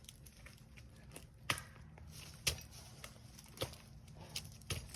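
Climbing spurs' steel gaffs stabbing into a tree trunk as the climber steps: five sharp knocks, roughly a second apart.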